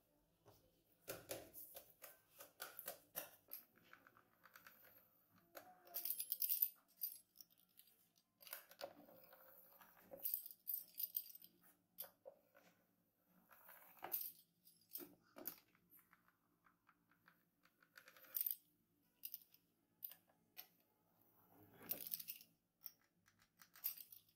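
Faint close-up handling of croissant dough on a wooden board: a cutter scoring the rolled-out sheet into triangles, with scattered taps, scrapes and crackles from gloved hands in irregular clusters.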